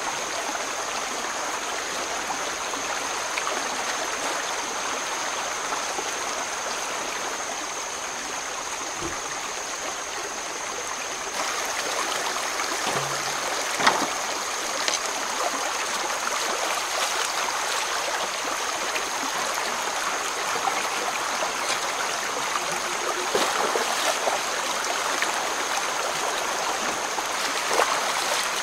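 Stream water running steadily over rocks, with a thin steady high tone throughout and a few short knocks about halfway through.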